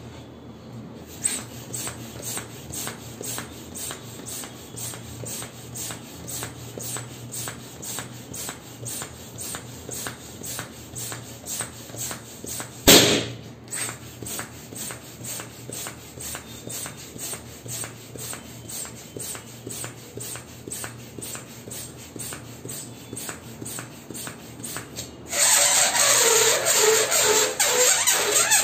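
Hand balloon pump worked at about two strokes a second, each stroke a short puff of air, inflating a small latex balloon; one loud pop about halfway through. Near the end a large latex balloon lets its air out through a pinched, stretched neck: a loud rush of air with a wavering squeal.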